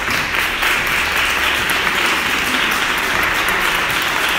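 An audience applauding: dense, steady clapping.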